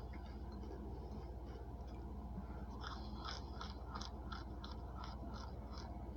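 Close-up chewing of crisp microwave-baked Argo cornstarch, crunching faintly at first and then clearly, about four crunches a second, from about three seconds in. A steady low hum runs underneath.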